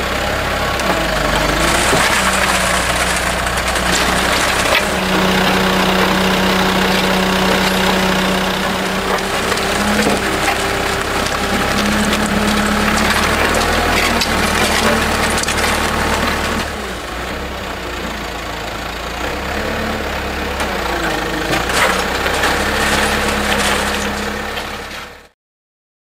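Backhoe loader's diesel engine running steadily as its concrete mixer bucket discharges wet concrete into a concrete skip, the engine note shifting a little in pitch. The sound cuts off suddenly near the end.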